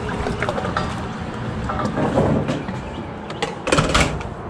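Bass boat's outboard motor idling with a low steady rumble, with a short cluster of knocks and rattles about three and a half seconds in.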